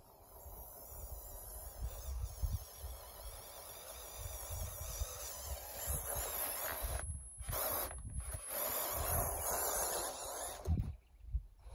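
FMS FJ45 RC crawler's electric motor and gearbox whirring as the truck drives, getting louder as it comes close and strongest while it climbs the dirt mound, with low rumbling thumps underneath.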